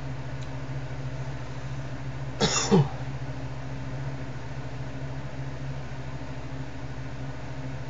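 Steady low hum in the room, with one brief throat clearing about two and a half seconds in.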